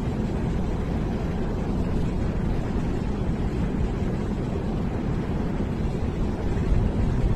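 Potter's wheel turning under a whiteboard disc, giving a steady low rumble.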